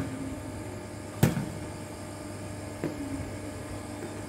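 Shuttlecock struck back and forth in a rally: a sharp hit about a second in and a fainter one about a second and a half later.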